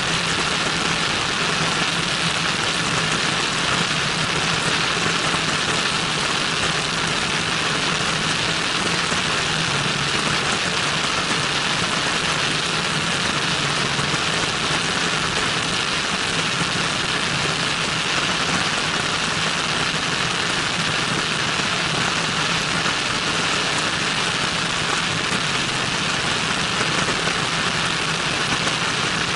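Cessna 172N in flight: its four-cylinder Lycoming engine running steadily under a constant rush of wind over a camera mounted outside the airframe.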